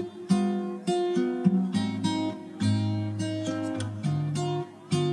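Background music led by acoustic guitar, a steady run of plucked and strummed chords.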